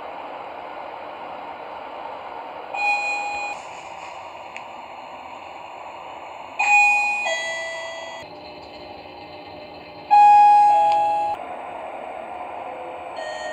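Sigma elevator chimes over a steady background noise. A single short ding comes about three seconds in. Two falling two-note ding-dongs follow, about seven and ten seconds in, and the last is the loudest.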